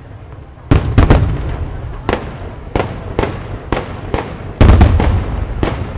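Aerial firework shells bursting in a quick irregular series, sharp bangs with booming rumbles, the first about a second in and the loudest cluster a little before the end.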